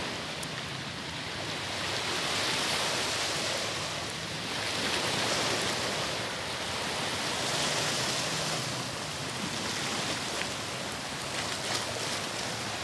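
Small sea waves washing onto the shore, a steady hiss that swells and eases every two to three seconds.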